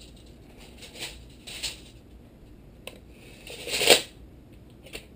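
Steel tape measure blade retracting into its case: a rattling whir that builds and stops sharply about four seconds in, after a few soft handling rustles.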